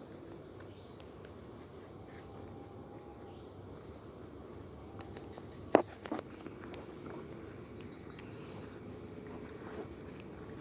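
Crickets and other night insects chirring steadily, with a sharp click a little under six seconds in and a softer one just after.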